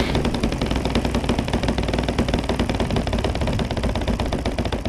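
Supercharged YS 115FZ-S four-stroke glow engine of an RC aerobatic plane idling steadily on the ground, heard close up from the wingtip.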